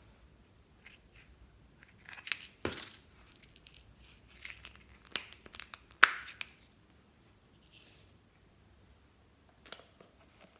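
A small plastic container being handled, with plastic clicks and rattles and a sharp snap about six seconds in as its cap comes off. Near the end, sprinkles rattle briefly out onto the slime.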